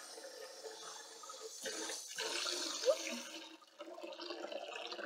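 Water sloshing in a stainless-steel sink as a deep fryer's pan is scrubbed by hand in soapy water, rising and dipping unevenly.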